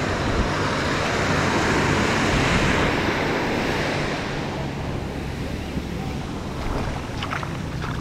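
Small surf breaking and washing up the sand at the shoreline, swelling about a second in and easing after about four seconds, with wind buffeting the microphone.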